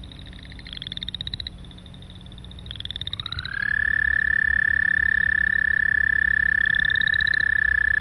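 American toad giving its long, loud monotone trill, starting about three seconds in with a brief upward slide and then holding one steady pitch. Behind it, chorus frogs give three short, higher, rising pulsed trills.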